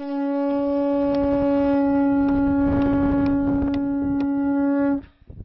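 Conch-shell trumpet (a Tibetan dungkar) blown in one long, steady, horn-like note of about five seconds that stops abruptly.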